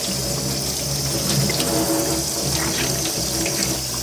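Kitchen tap running steadily into a stainless steel sink, the stream splashing over hands and gutted kisu (Japanese whiting) as their belly cavities are rinsed.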